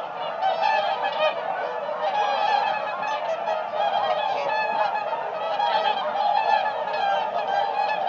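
A flock of swans calling: many overlapping honking calls form a continuous, dense chorus with no pauses.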